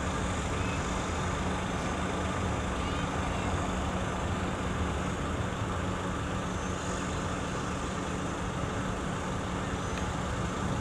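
Engine noise running steadily, with a constant low hum and rumble that neither rises nor falls.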